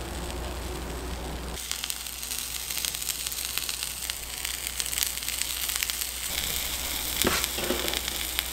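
Bread frying in butter in a small square nonstick pan, sizzling and crackling steadily; the sizzle comes up clearer about a second and a half in. A brief knock sounds near the end.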